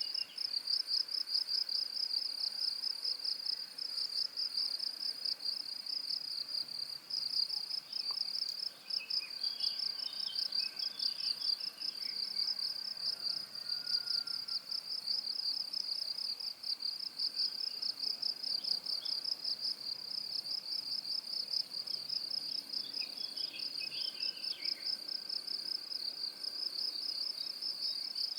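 Crickets chirping in a fast, even, high-pitched pulsing trill that never lets up, with faint lower chirps in the background twice.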